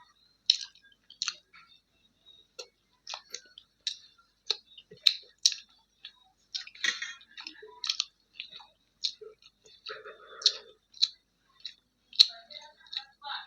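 Close-miked eating sounds: irregular, short wet mouth smacks and chewing clicks, about one or two a second, from someone eating kadhi pakoda with roti.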